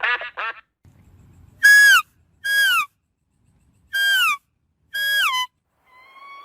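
The last two of a run of duck quacks, then four loud high calls from another animal, each held briefly and then dropping in pitch.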